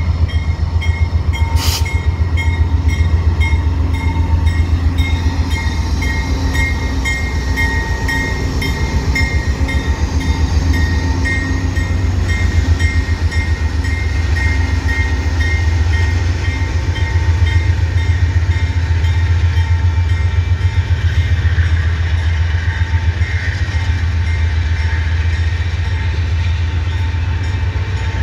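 Amtrak GE P42 diesel-electric locomotive passing at close range: its V16 diesel engine running with a deep, pulsing rumble, followed by the wheels of the baggage and passenger cars clicking over the rail joints. A level-crossing warning bell rings steadily over it.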